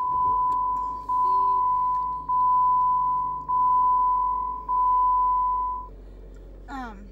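Car's dashboard warning chime beeping five times, each beep a steady high tone about a second long with short gaps, over a low steady hum from the vehicle.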